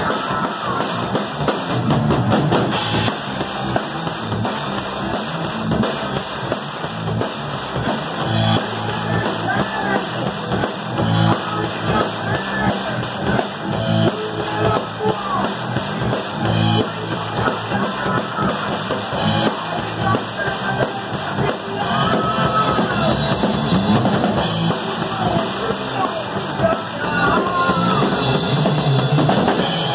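Rock band rehearsing live: a drum kit with crashing cymbals, electric bass and electric guitar played together, loud and continuous.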